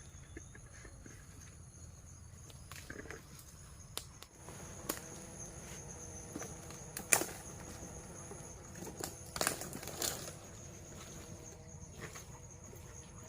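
Steady, high-pitched insect chorus, two thin shrill tones held without a break, with scattered sharp clicks and crackles on top, the loudest about seven seconds in and a quick cluster around nine to ten seconds.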